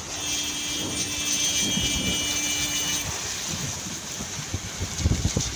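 Storm wind and heavy rain making a steady rushing noise. A steady high whine sits over it for the first three seconds and stops, and near the end gusts buffet the microphone with low rumbles.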